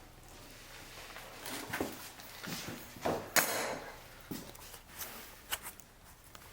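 Full-body mallard decoys and their bases being handled: a string of knocks, clicks and short rustles, the loudest a brief scraping burst about three and a half seconds in.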